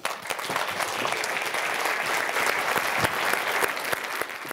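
Audience applauding: dense, steady clapping that starts as the talk ends.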